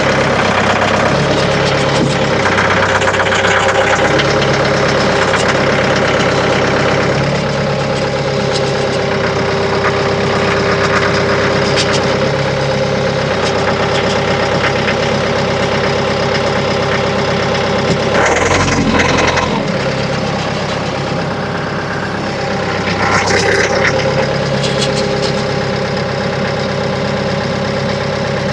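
Mahindra tractor's diesel engine running steadily, its low hum shifting up and down a little. About two-thirds of the way in there is a brief louder burst with a heavy low thump, and a smaller louder burst a few seconds later.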